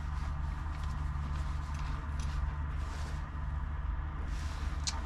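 Quiet handling of a cordless drill and its screwdriver bit, with small ticks and one sharp click near the end, over a steady low hum.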